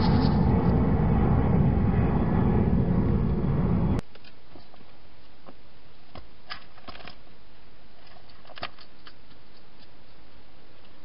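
A loud rushing rumble for the first four seconds that cuts off abruptly, then a quiet steady hiss with a few faint clicks and crunches from a hedgehog feeding inside a plastic feeding box, about two seconds in after the cut and again a little later.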